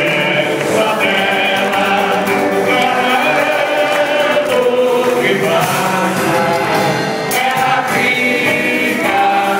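A group of relatives singing a birthday song together in Portuguese, with hand-clapping and a small band playing along.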